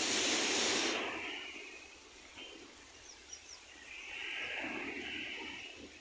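Rushing beach noise of wind and surf. It is loud for the first second and stops sharply, then swells again from about four seconds in. A few faint high chirps come near the middle.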